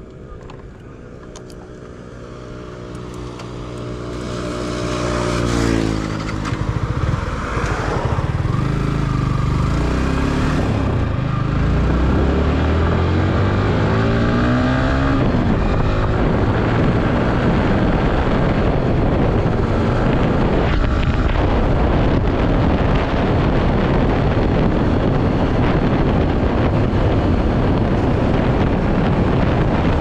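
Yamaha R15's single-cylinder engine pulling away from a standstill and accelerating up through the gears, its pitch rising in each gear and falling at each upshift over the first quarter-minute. As speed builds, a steady rush of wind on the microphone grows to cover the engine.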